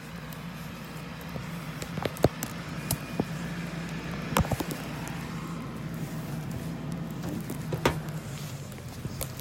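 Footsteps in snow, with a few sharper snaps about two, four and a half and eight seconds in, over a steady low hum.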